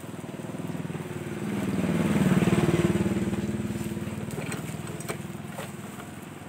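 A motorbike passing by, its engine growing louder to a peak about two and a half seconds in and then fading away, over the steady sizzle of banana fritters deep-frying in a wok of oil. A few light clicks come near the end.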